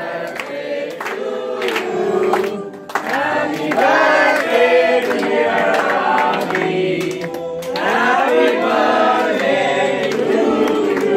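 A group of people singing a birthday song together, with hand clapping along.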